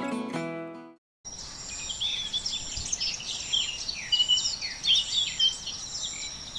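Many birds chirping and twittering in dense, overlapping short calls over a steady outdoor hiss, starting after acoustic guitar music fades out in the first second.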